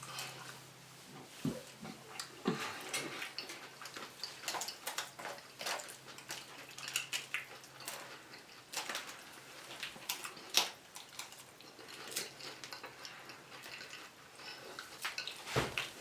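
Close-miked eating: irregular crunching, chewing and wet mouth sounds from people eating loaded tortilla-chip nachos, with light clicks of cutlery or a plate.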